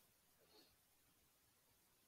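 Near silence: room tone in a pause between spoken sentences.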